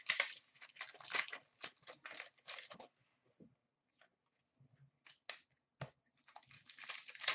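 Trading cards and foil card packs being handled: dense rustling and crinkling for about three seconds, then a few scattered light clicks and taps, with the crinkling picking up again near the end.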